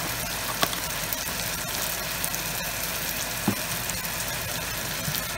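Onions, green chillies and spices frying gently in oil in a large pot, a steady faint sizzle over a low steady hum, with a few light clicks.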